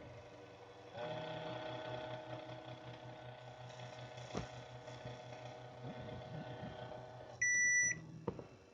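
Panasonic electronic bidet toilet seat running with a small motor humming steadily and pulsing rapidly for about six seconds, then a short electronic beep, the loudest sound, followed by a click.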